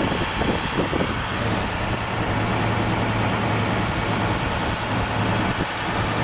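Car on the move: steady road and engine noise. About a second in the high hiss eases and a low, even drone sets in.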